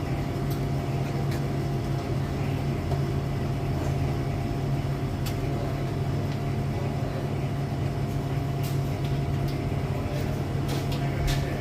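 Steady low machinery hum with a few light clicks near the end.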